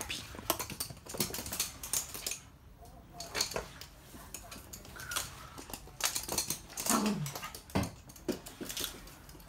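Toy poodles' claws clicking and tapping on a hard laminate floor as they trot and scrabble about, in irregular quick clusters.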